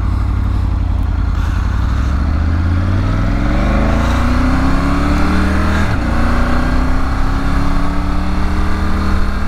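2021 Triumph Tiger 900 GT Pro's inline three-cylinder engine accelerating hard from a standstill. It rises in pitch through first gear, makes a brief clutchless quick-shifter upshift about six seconds in, then climbs again in second gear.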